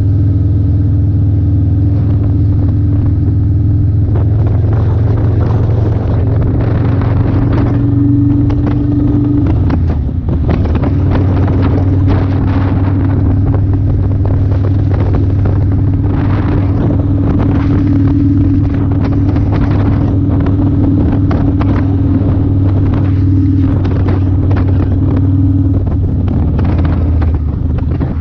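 2008 Kawasaki Vulcan 900 Classic's V-twin engine running at a steady cruise, with wind buffeting the camera's microphone. About ten seconds in the engine note drops briefly, then settles back to a steady run.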